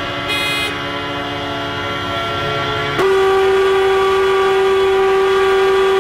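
Vehicle horns and sirens held together in a steady chord. About halfway through it gives way to a louder single steady tone that holds. This sounding of sirens and horns marks the 09:05 commemoration of Atatürk on 10 November, when Turkey stops for a moment.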